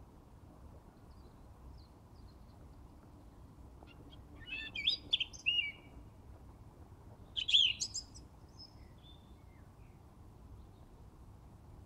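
A songbird singing two short, intricate high-pitched phrases about three seconds apart, with a few faint notes between them, over faint low background noise.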